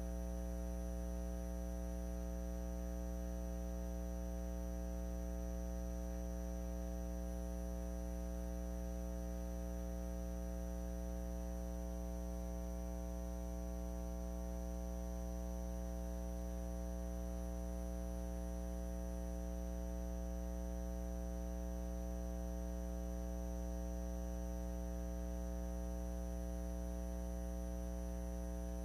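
Steady electrical mains hum with a buzzy stack of overtones and a faint high whine, unchanging throughout.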